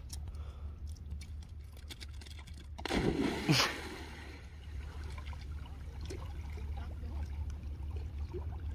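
A dog leaping into shallow water with a loud splash about three seconds in, then lighter sloshing as it swims out.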